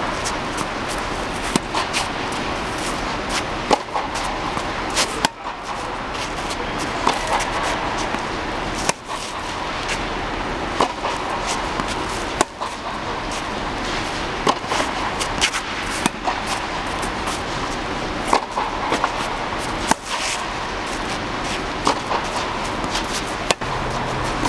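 Tennis ball struck by rackets and bouncing on the court during a rally: sharp pops at irregular intervals about every second or two, over a steady background noise.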